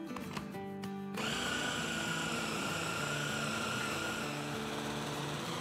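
Electric food chopper's motor starting about a second in and running steadily with a whine, grinding raw chicken breast with onion, spices and bread into kebab mince.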